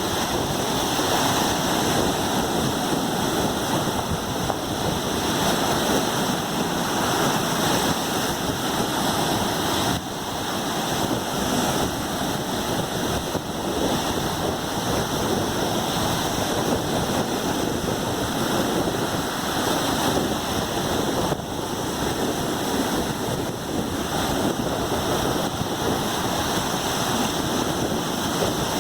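Gulf of Mexico surf washing onto the shore: a steady rush of breaking waves with little rise and fall in loudness.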